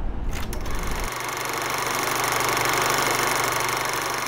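Film projector running: a fast, steady mechanical clatter that starts about a second in, after a moment of low outdoor background noise.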